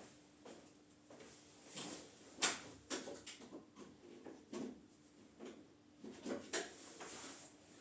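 Irregular light knocks and clicks of hands working on a stopped lathe, the loudest about two and a half seconds in, over a faint steady hum.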